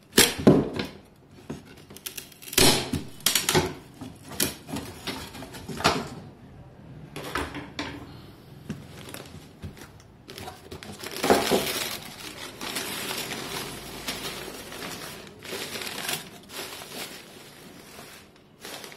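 Thin wooden slats of a fruit crate being pried and pulled off with pliers, giving a series of sharp cracks and snaps, then newspaper and paper wrapping rustling and crinkling as it is folded back from about halfway through.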